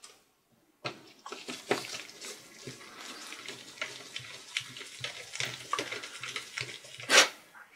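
Small screwdriver turning a screw into a laptop's plastic palm rest, with close scraping, clicking and rubbing from gloved hands on the plastic. It starts about a second in, with one louder scrape near the end.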